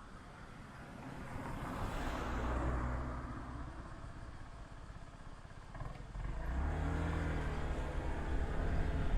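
A road vehicle passes by, its noise swelling and fading over a couple of seconds. Then, about six seconds in, a vehicle engine starts a steady low hum that runs on.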